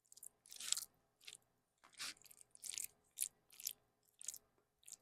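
Crunching of a piece of crispy fried fish being chewed with the mouth close to the microphone: a string of short, crisp crunches about every half second.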